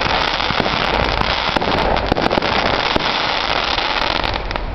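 Aerial fireworks bursting overhead: a dense, continuous crackle of many rapid pops.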